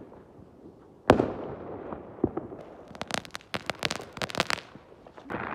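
Fireworks going off: one loud bang about a second in, echoing afterwards, then from about three seconds in a rapid run of sharp crackling pops.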